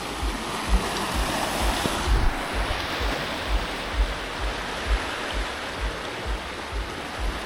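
Steady wash of sea surf on coastal rocks, with a regular low beat a little over twice a second from background music.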